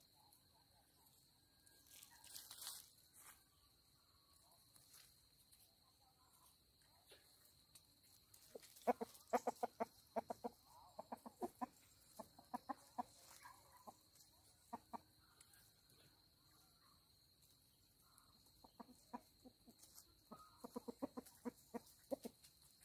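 Chicken clucking in two runs of quick, repeated clucks, several a second, from about nine seconds in and again near the end.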